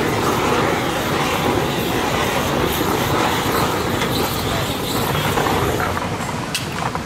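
Aerosol spray-paint can hissing in one long continuous spray, which eases off about six seconds in, followed by a few light clicks.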